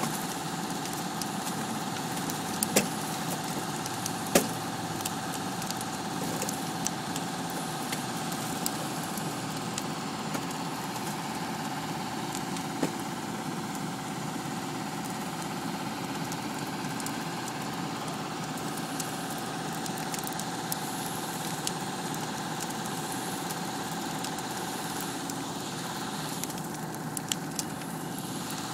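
Fire engine's engine running steadily, holding a constant pitch. A few sharp pops stand out over it, the loudest about four seconds in.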